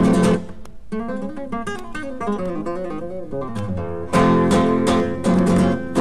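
Music played from an old vinyl radio transcription disc: acoustic guitar picking quick notes, then louder strummed chords from about four seconds in.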